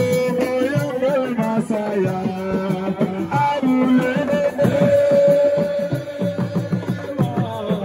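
Music with drums and sustained melodic lines, loud and continuous.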